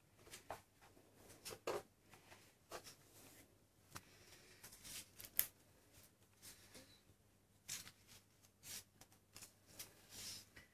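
Faint, irregular scratches, rustles and light taps from a kitten's paws and claws on a laminate floor as it plays.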